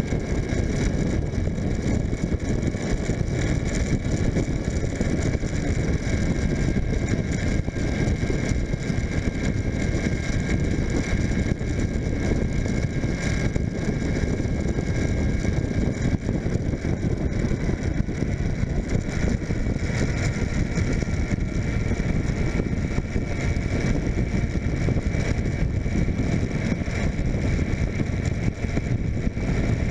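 A 2004 Suzuki GSF600 Bandit's inline-four engine running steadily at road speed, under a heavy rush of wind on a camera mounted on the bike.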